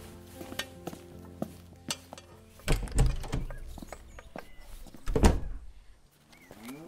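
Audio-drama sound effects over quiet background music: scattered knocks and two heavy thuds, about three and five seconds in, with a rising pitched sound near the end.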